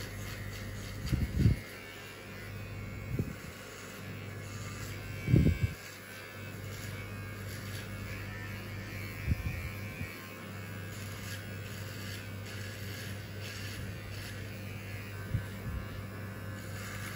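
Electric hair clippers buzzing steadily during a head shave, broken by a few low thumps, the loudest about a second and about five seconds in.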